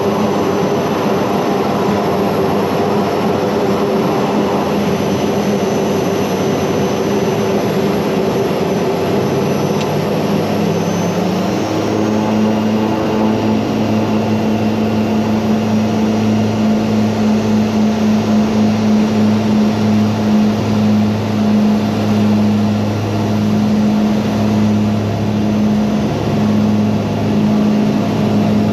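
Mitsubishi MU-2's twin Garrett TPE331 turboprop engines and propellers running as a steady drone. About ten seconds in, the propeller tones rise in pitch, and later the sound swells and fades in a slow wavering beat.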